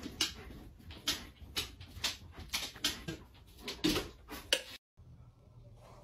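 A string of irregular knocks and taps, about two a second, from a dog's paws striking and scrabbling at a wall. They stop suddenly near the end.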